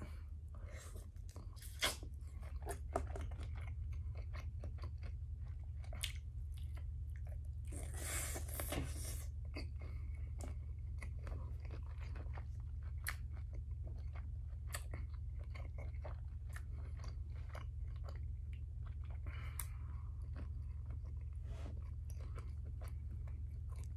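Close-miked chewing of a large cooked shrimp: irregular wet clicks and crunches of the mouth, with a longer breathy noise about eight seconds in, over a steady low hum.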